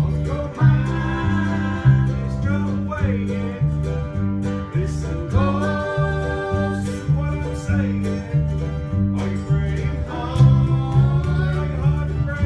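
Bluegrass gospel band playing: an electric bass guitar alternating notes on a steady beat, acoustic guitar and mandolin strumming, and a lead vocal singing in three phrases.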